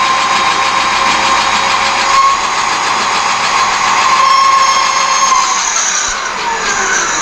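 Metal lathe boring a steel part with a long, slender boring bar at about 800 RPM, taking a light cut. The cut gives a steady high ringing tone over a dense hiss, and the tone fades out about five and a half seconds in.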